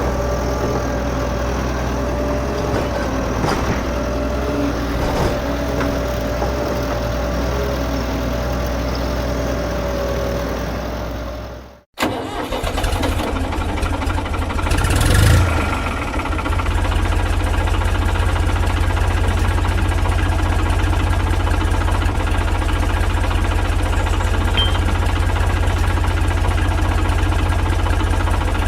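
Engine running steadily. It cuts out abruptly about twelve seconds in, then an engine starts with a brief rise a few seconds later and settles into a steady idle.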